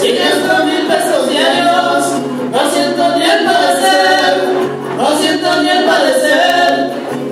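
Several voices singing together in harmony over band music, in sung phrases that begin about every two and a half seconds, each opening with a rising slide into the note.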